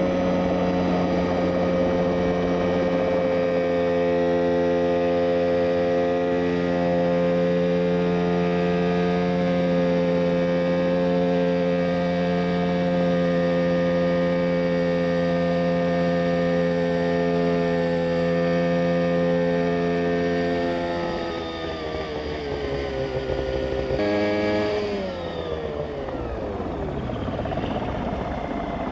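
Mosquito Air ultralight helicopter's engine and rotor running steadily at hover power, then dropping in pitch about three-quarters of the way through. After a break, the engine is shut off with the rotor still up to speed, and the sound winds down with a falling pitch.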